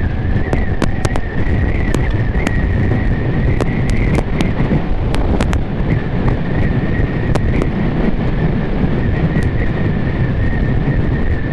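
Vespa scooter running steadily at road speed, its engine rumble mixed with wind rushing over the microphone, a steady high whine, and scattered sharp ticks.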